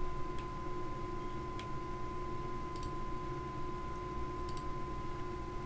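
A few faint computer-mouse clicks, spaced a second or more apart, over a steady high electrical whine in the background.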